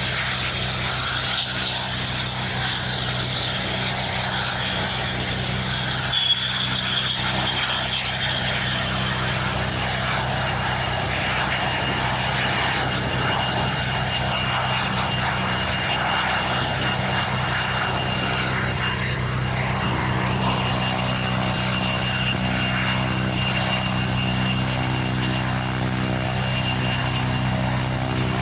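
Propeller aircraft engine running steadily, a constant low drone. A thin high whine joins in about nine seconds in.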